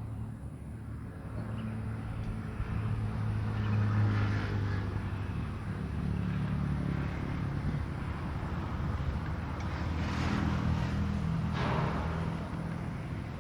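Motor vehicle engines passing by, a low hum that swells about four seconds in and again between about ten and twelve seconds in.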